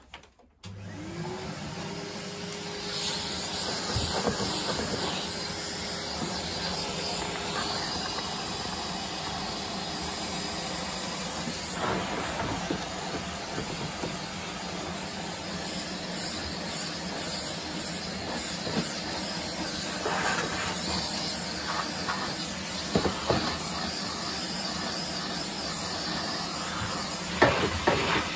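Vacuum cleaner switched on about half a second in, its motor rising in pitch as it spins up, then running steadily. A few short knocks stand out over the running noise.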